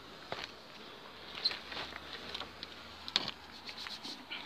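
Irregular footsteps crunching and scraping on debris, a few sharp crunches spread unevenly among fainter scuffs.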